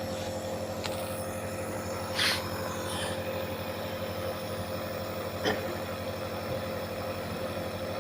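Compressor nebulizer motor running with a steady hum, misting medicine for a child to inhale against a cough. Two brief hissy noises sound about two seconds in and again about five and a half seconds in.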